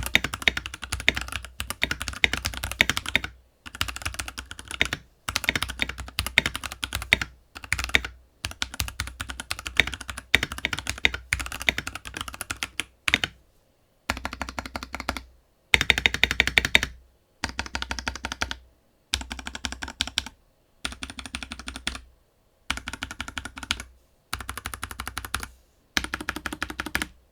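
Typing on a Keychron K6 Pro wireless 65% mechanical keyboard with Gateron red switches and double-shot PBT keycaps: fast runs of key clacks in stretches of a second or two, broken by short silences and abrupt stops.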